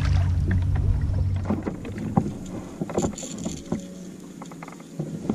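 Wind and water noise around a small fishing kayak on open water, with scattered light clicks and knocks of handling gear. A low rumble fills the first couple of seconds, then drops to a quieter background.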